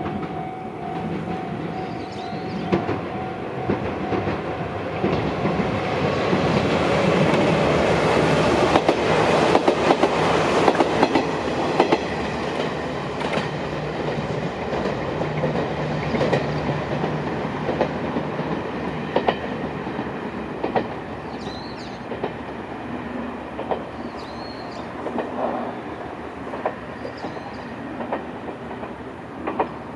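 Izuhakone Railway Sunzu Line electric train running past, wheels clacking over the rail joints. It is loudest about ten seconds in, then fades away.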